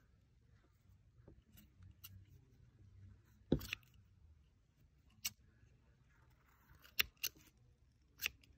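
Scissors snipping at pre-looped chenille yarn: about five short, sharp clicks, the loudest about three and a half seconds in, with faint handling of the yarn between them.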